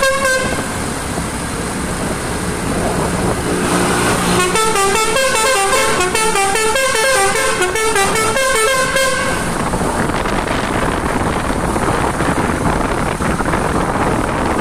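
Basuri 'telolet' musical car horn playing a quick tune of short stepped notes, which ends just after the start. A second tune follows from about four and a half seconds to nine seconds. After that there is only steady outdoor noise.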